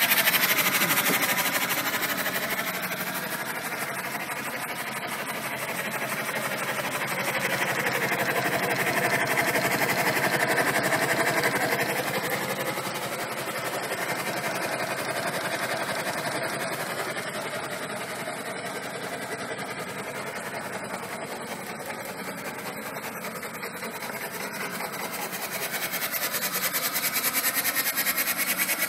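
Mid-1940s naval steam engine, rated 8 HP at 500 RPM, running with a fast, even clatter. Its speed rises and falls several times in slow swells.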